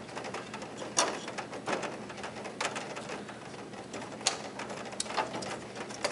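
A Rotopoint door panel being rocked back and forth to work it loose off its mounting studs, giving irregular clicks and knocks, the sharpest about a second in and just past four seconds.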